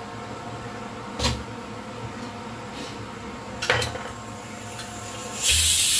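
Two knocks as things are set down on the counter, about a second in and just before four seconds, then a loud hiss of steam venting from a pressure cooker near the end.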